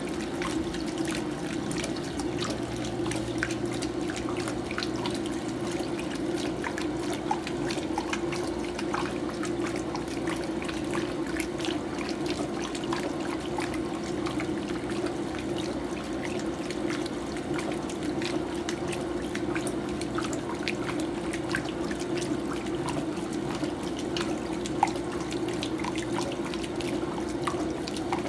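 Electrolux Prosdócimo washing machine in its rinse cycle: steady running and splashing water inside the tub, with scattered small drips and ticks. A faint low hum comes in a few seconds in and fades out near the end.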